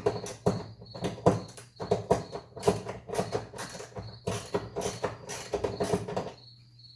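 Ratchet wrench clicking in quick irregular bursts, about three a second, as it backs out the bolt holding the defrost duct. The bursts stop near the end. A cricket chirps steadily in the background.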